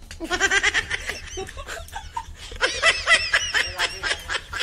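A woman laughing in two bouts of quick giggles: a short one near the start and a longer, louder one from about two and a half seconds in.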